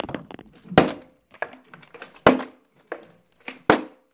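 Partly filled plastic water bottle being flipped and hitting the floor: three sharp knocks about a second and a half apart, with lighter taps and handling in between.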